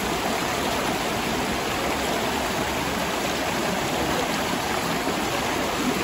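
River water flowing steadily, a constant rush of current.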